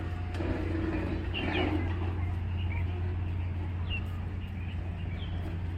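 Open-air ambience: a steady low hum with small birds chirping briefly a few times and faint voices of people in the background near the start.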